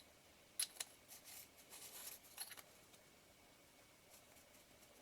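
Faint handling sounds of small lens parts as the nameplate front ring of a Nikon lens is put in place: two sharp little clicks about half a second in, then a short spell of light scraping and ticking.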